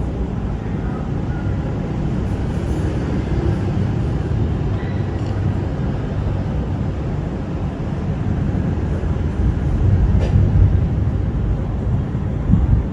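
Steady low rumble of a thunderstorm, swelling louder about ten seconds in.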